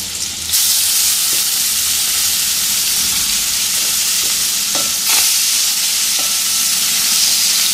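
Raw shrimp sizzling as they fry in butter and olive oil in a stainless steel pan; the sizzle jumps louder about half a second in as more shrimp go in. A few light knocks against the pan around the middle.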